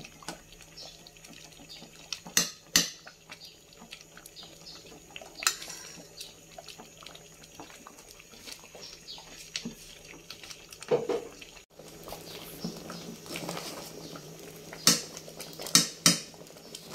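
A pot of thick champorado bubbling while a spoon stirs it, with several sharp clinks of the spoon against the pot.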